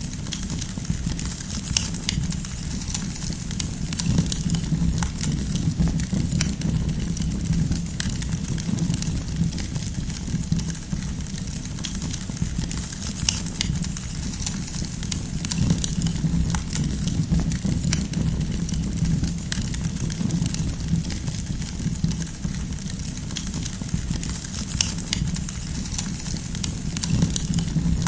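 Campfire crackling: firewood snapping and popping in frequent irregular clicks over a steady low rumble.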